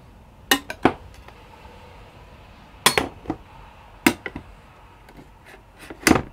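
Kitchen knives snapping onto a metal magnetic knife bar one after another, each landing with a sharp metallic click or clack. The clicks come in small clusters every second or two, about four placements in all.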